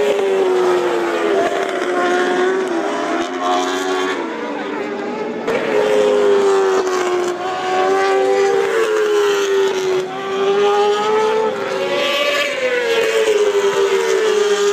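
Several 1000cc four-stroke MotoGP racing motorcycles at full race pace, their engine notes overlapping and sliding down and back up in pitch again and again as the revs fall and climb.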